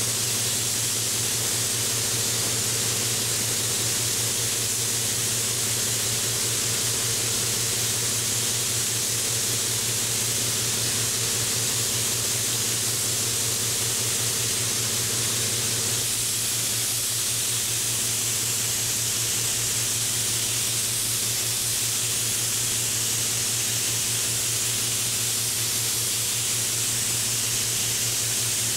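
DeVilbiss Finish Line 3 spray gun hissing steadily as it sprays primer on compressed air, over the steady hum of a spray-booth exhaust fan.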